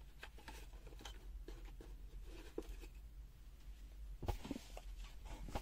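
Faint scattered clicks and taps of small objects being handled, with a louder knock about four seconds in and another near the end.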